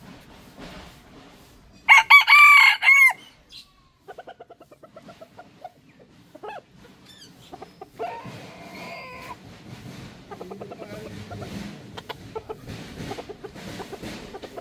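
A rooster crows loudly about two seconds in, followed by a quick run of short clucks and a fainter second crow about eight seconds in.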